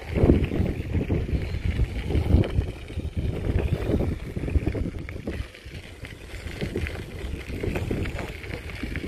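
Wind buffeting the microphone of a bicycle riding along a dirt path, an uneven low rumble mixed with the rolling of the tyres, easing briefly about five and a half seconds in.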